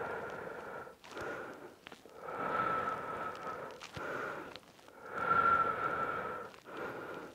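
A man's slow, deep breathing, each breath in and out audible as an airy rush in a steady rhythm. It is the deliberate breathing used to ease deeper into a stretch.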